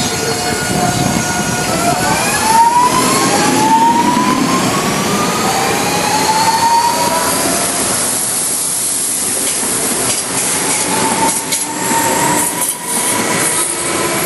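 CPTM electric commuter train pulling away from the platform and running past close by. Its traction motors give a series of rising whines as it accelerates, settling into a steadier whine in the last few seconds, over the running noise of the wheels on the rails.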